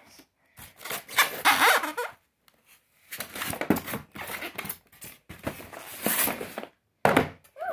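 A cardboard box being dragged out of a tight expanded-polystyrene foam shipping box, the foam rubbing and squeaking against it in about four scraping spells of a second or two each.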